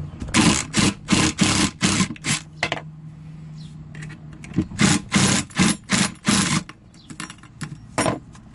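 Makita impact driver run in short bursts, rattling as it backs out the screws of the cabinet's door hardware: a string of brief bursts a few per second, with a pause about halfway through.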